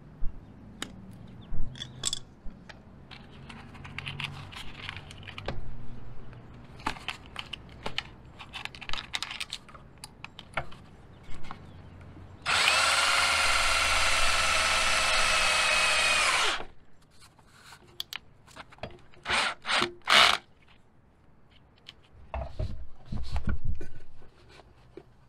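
Cordless drill running at a steady speed for about four seconds, drilling up into the underside of a cargo trailer's floor, then winding down as it stops. Scraping, tapping and handling noise come before and after.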